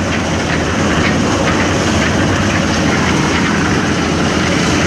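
Portable drum concrete mixer running steadily, its drum turning a batch of concrete, with a light clatter over the steady hum.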